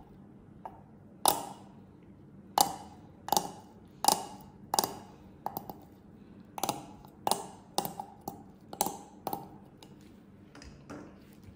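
A spatula knocking and scraping against a beaker while stirring vitamin E oil into whipped shea butter: about fifteen sharp, irregular taps, each with a short ring, thinning out near the end.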